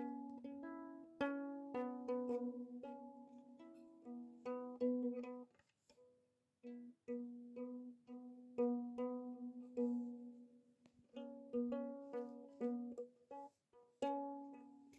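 Background music of plucked strings: light pizzicato notes in a bouncy, steady tune, breaking off briefly twice.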